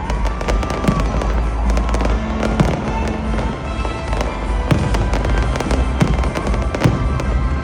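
Fireworks going off in rapid succession: sharp bangs and crackles, with a few whistling tones, over music with a steady deep bass.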